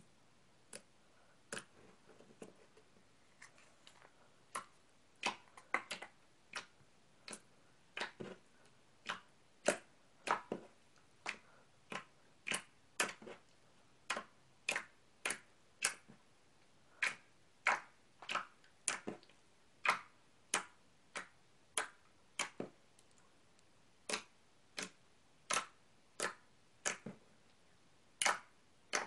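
Clear slime being squished and pressed by hand for ASMR, giving sharp wet clicks and pops about once or twice a second, faint at first and louder from about four seconds in.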